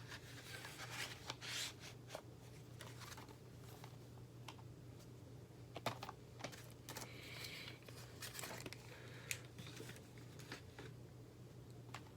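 Faint clicks, scratches and plastic crinkling from an autograph card being handled and slid into a protective plastic sleeve, over a low steady hum.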